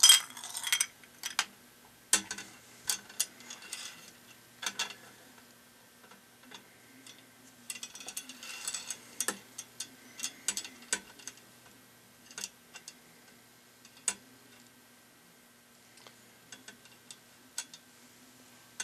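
Scattered light clicks and taps from an Ohaus reloading beam scale being worked by hand: a pulled bullet set in its brass pan and the sliding poises moved along the beam. There are denser bursts of clicking just after the start and again about eight seconds in.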